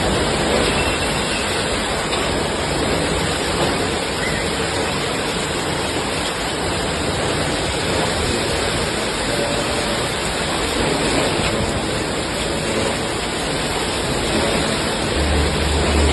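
Heavy rain pouring down in a windstorm, a steady dense roar of rain and wind. A low rumble comes in near the end.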